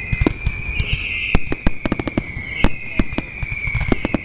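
Aerial fireworks bursting in quick, irregular succession: a dense run of sharp bangs and cracks, several a second.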